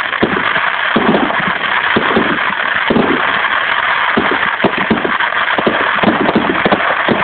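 Fireworks display going off: a steady dense crackle with many quick bangs from bursting shells.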